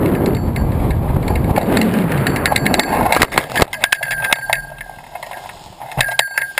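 Wind rushing over the keel-mounted camera of a hang glider in low flight, then a crash into dry grass and brush about three seconds in: a quick clatter of knocks and rustling as the glider hits. After that the wind noise is gone and only scattered clicks remain.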